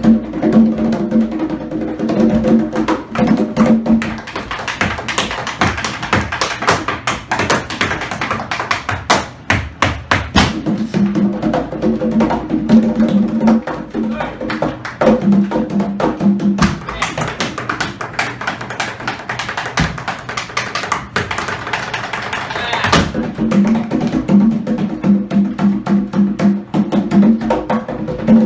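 Tap shoes striking a hard stage floor in fast, improvised rhythm-tap patterns, over live stage-piano accompaniment.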